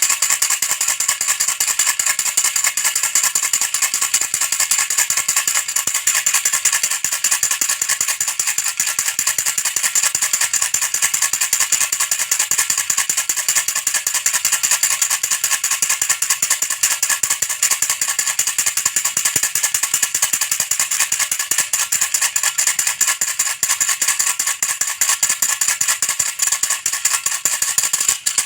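Baby rattle shaken steadily and fast without pause, a dense high-pitched clatter.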